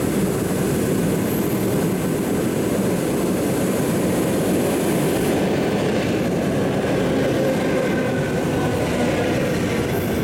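Steady rumble and hiss of an EP2D electric multiple-unit train, with a faint high whine coming in about halfway through.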